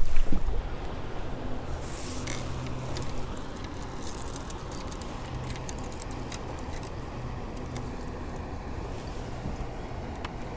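Fishing gear being handled on a kayak: quick, irregular small metallic clicks and rattles, thickest in the first half, over a steady low rumble.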